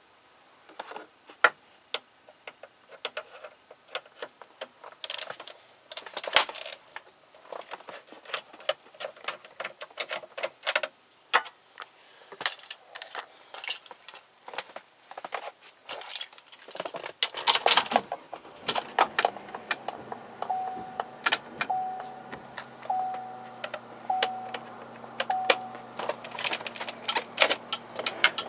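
Clicks and rattles of hands working on the dashboard plastics and instrument cluster of a 2010 Chevrolet Captiva. Past the middle a steady low hum starts, and the car's warning chime beeps five times, evenly spaced about a second and a quarter apart.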